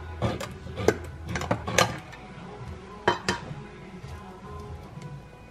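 Handheld can opener worked around the rim of a metal can, a run of sharp metallic clicks, then a couple of clinks about three seconds in as the cut lid comes off and the opener is set down on the counter.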